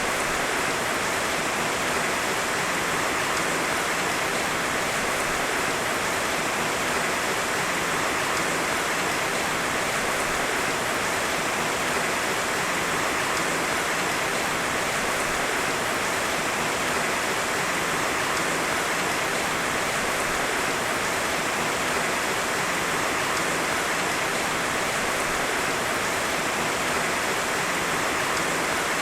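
Heavy rain falling steadily, a dense even hiss without thunder.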